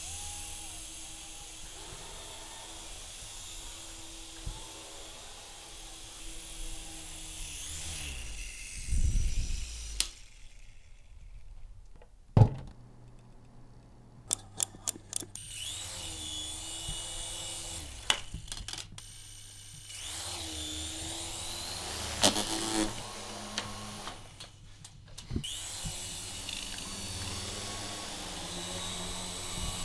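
Small electric rotor motors of a toy RC helicopter whirring, their pitch wavering up and down, with a few short breaks. Several sharp clicks and knocks come in the middle.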